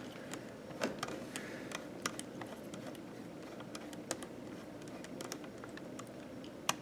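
Irregular small clicks and ticks of a precision screwdriver driving the tiny screws that hold an SSD in its laptop drive bracket.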